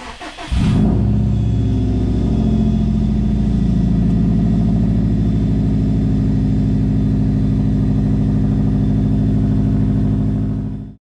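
2011 Subaru WRX STI's turbocharged flat-four engine, a COBB Stage 2 car with its intake not yet refitted, cranks briefly and catches about half a second in, then runs at a steady idle. This is the first start after a timing belt and water pump replacement, and the engine fires and keeps running.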